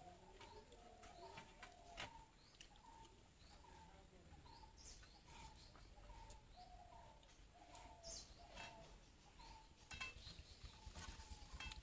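Faint bird calls: a repeated short note about twice a second, with occasional higher chirps and a few faint clicks.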